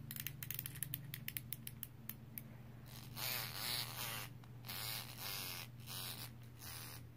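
A quick run of light clicks or taps, then several short rustling swishes, over a low steady hum.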